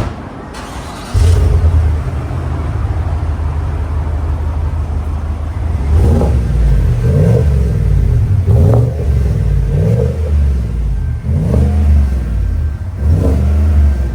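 A GMC Denali's engine starts about a second in and idles through a newly fitted Rush muffler and resonator exhaust, then is revved in about six short blips.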